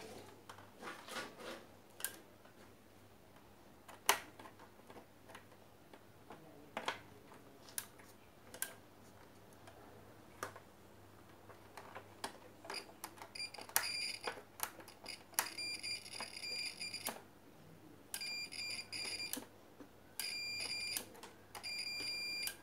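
Scattered clicks of parts being handled, then, in the second half, a multimeter's continuity buzzer giving a run of high beeps, some short and some held for a second or more, as the probes are put across the blender's switch set. The beeps show the switch contacts conducting.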